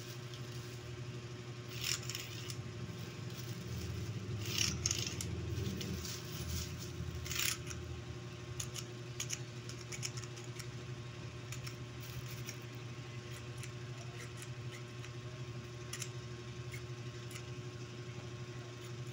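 Plastic wet-wipe lids being handled and tested, with scattered sharp clicks of the flip-tops snapping and the crinkle of plastic wrap; the louder clicks come about 2, 5 and 7 seconds in, with lighter ticks after. A steady low hum runs underneath.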